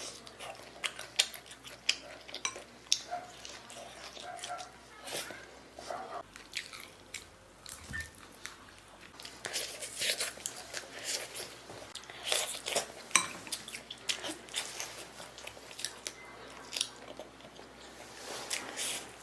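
Close-up eating sounds: chewing and biting oil-splashed noodles, with many irregular wet mouth clicks and smacks.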